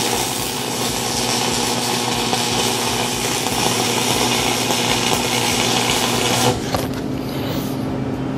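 Stick (shielded metal arc) welding: the electrode's arc crackles and sizzles steadily, then cuts off about six and a half seconds in as the arc is broken. A steady low hum runs underneath throughout.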